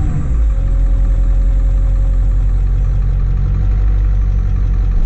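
Ford one-ton diesel dump truck engine running at idle while the hydraulic dump control lever is worked. About half a second in, the engine note drops lower and heavier, and a faint whine follows for a couple of seconds.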